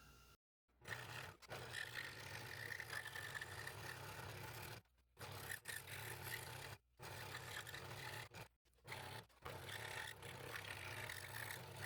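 Scroll saw running with a fresh No. 3 blade, cutting a fairly dense wood blank: a steady low hum from the saw under a scratchy rasp of the blade through the wood, broken by several short, abrupt silences.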